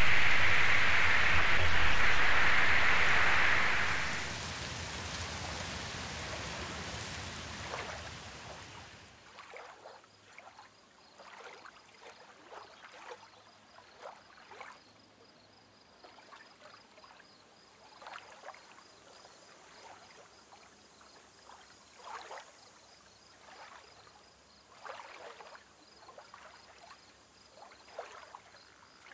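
Steady rushing water, loud at first, fading from about four seconds in and dropping out around nine seconds in; after that only faint scattered trickles and drips.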